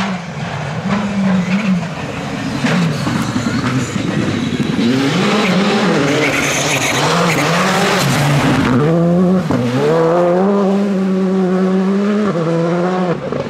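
Rally car on a gravel stage, its engine revving hard, the pitch climbing and dropping again and again with gear changes and lifts, then held high near the end. A loud hiss of tyres sliding and spraying gravel swells around the middle.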